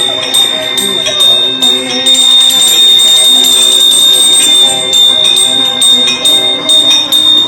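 Temple bell ringing rapidly during deeparadhana, the clapper striking about three times a second over a steady high ring, turning into a dense, unbroken clangour for a few seconds in the middle before the separate strokes come back.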